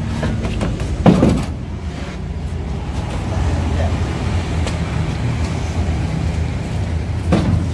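Heavy steel press cage knocking down onto a pickup truck's wooden deck, a loud clank with ringing about a second in and a smaller knock near the end, over the steady low hum of an idling vehicle engine.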